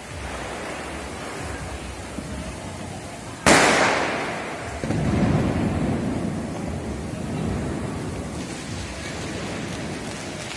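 A single loud firecracker bang about three and a half seconds in, trailing off with an echo, followed by several seconds of low rumbling noise over a steady background din.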